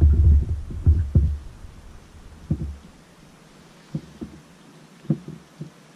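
Dull thumps and knocks from a freshly caught fish being handled and unhooked in a boat: a dense low rumble with several thumps in the first second or two, then a few single knocks spaced out through the rest.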